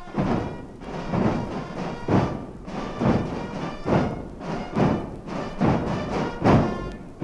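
Swiss carnival Katzenmusik band of brass and drums playing a march, with a heavy drum beat about once a second.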